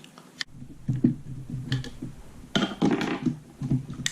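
Hands working parts of a metal gel blaster apart: a few sharp clicks and knocks with scraping and rattling as the T-piece is wiggled out and the upper receiver is slid off.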